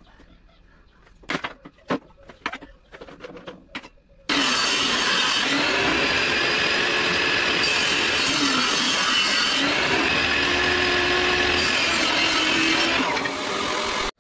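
A few knocks and clicks of wood being handled, then about four seconds in a benchtop table saw runs and cuts a wooden board fed along its rip fence, a loud steady whine of blade in wood that eases slightly near the end.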